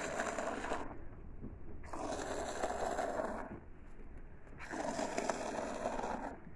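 Streams of goat milk squirting from hand-milking into a bucket of frothy milk, a hissing spatter. It comes in three runs of rapid squirts, each broken off by a short pause.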